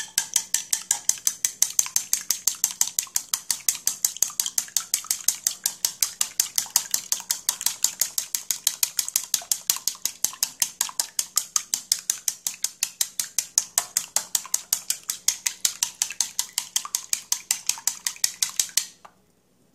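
Chopsticks beating raw eggs in a bowl: a fast, steady rhythm of clicks as the sticks strike the bowl. The clicks stop suddenly near the end.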